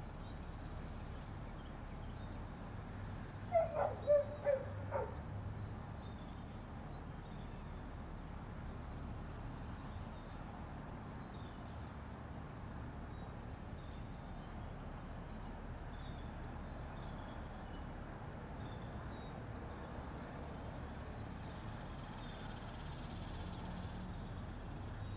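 A dog barking four times in quick succession about three and a half seconds in, over a steady low background rumble.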